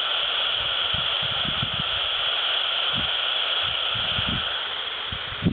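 Static hiss from an Albrecht AE 201S CB handheld's speaker on single sideband, the receiver open between transmissions, with faint low rumbles under it. The hiss cuts off suddenly at the very end.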